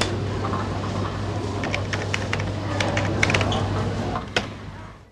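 Runs of quick, light clicks, several a second, over a steady low hum and background noise, fading out near the end.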